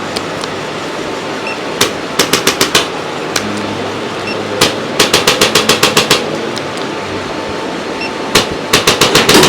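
Quick, sharp percussive strikes in runs of about eight a second. There is a single strike followed by a run of six about two seconds in, a longer run of about a dozen near the middle, and another single strike followed by a run near the end. A steady background hum runs underneath.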